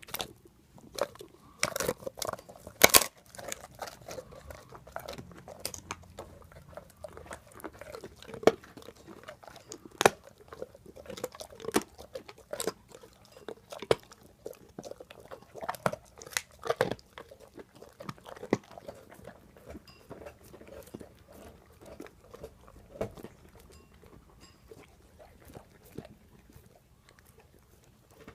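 English mastiff chewing a bone: irregular loud cracks and crunches between its teeth, with wet gnawing in between, most frequent in the first half and sparser toward the end.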